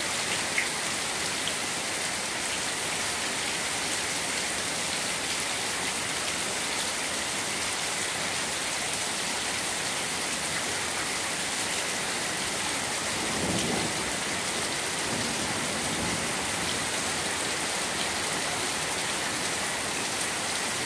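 Heavy rain pouring onto standing floodwater and wet pavement, a steady dense hiss of splashing drops. A brief low rumble comes about two-thirds of the way through.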